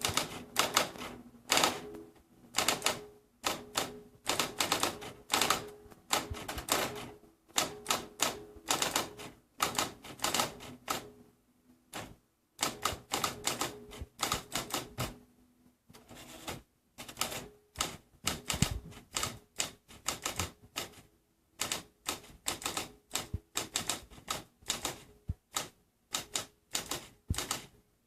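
Typewriter keys struck in quick runs of sharp clacks, each run a second or two long with short pauses between them and a longer break about twelve seconds in.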